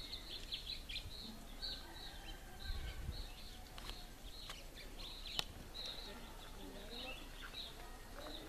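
Birds chirping: many short, high calls repeating over and over, with an occasional thin held note. A single sharp click sounds a little past halfway.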